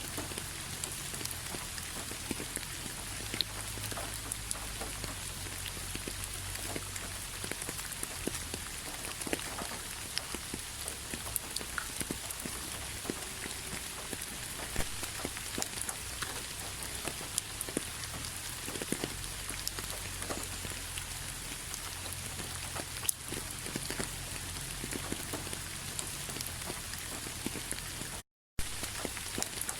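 Steady rain with many scattered drops tapping sharply on a surface. The sound cuts out completely for a moment near the end.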